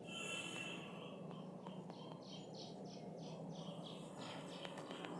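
A bird calling faintly: a quick run of about eight repeated chirps, starting about two seconds in, over a low steady hum.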